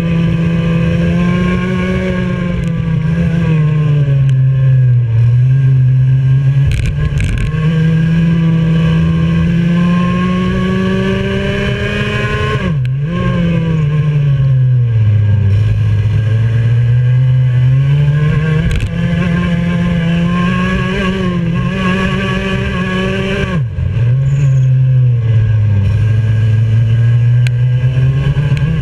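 Junior X30 kart's 125cc two-stroke single-cylinder engine at race pace, heard onboard. Its note climbs steadily as it revs out along the straights and falls away through the corners, with two sharp dips where the throttle is shut hard, about halfway and again near the end.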